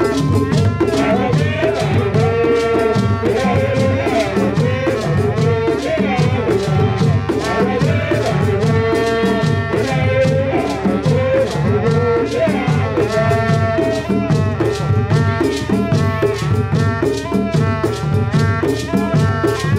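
Tiv traditional dance music from a live drum-and-rattle ensemble: hand drums and shaken rattles keep up a fast, steady rhythm, with a wavering melody line carried over it.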